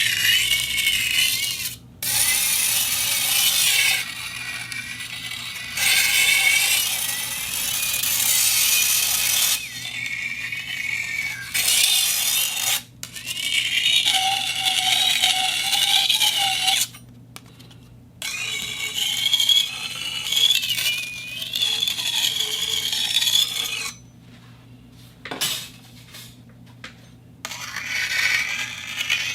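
Metal plate scraping against a spinning turntable, giving a wavering high-pitched squeal over harsh scraping noise. It comes in stretches of a few seconds, broken by short pauses.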